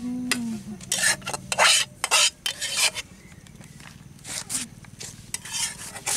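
Metal spatula scraping cooked greens out of a steel wok into a steel bowl. There are several quick rasping strokes in the first three seconds, then a few more scrapes near the end.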